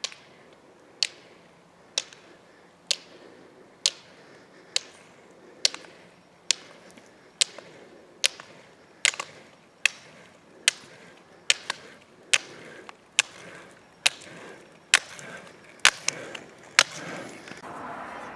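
Roller-ski poles double-poling on asphalt: the pole tips strike the pavement together in sharp clicks about once a second, coming slightly faster and growing louder. Near the end the clicks give way to a steady hiss.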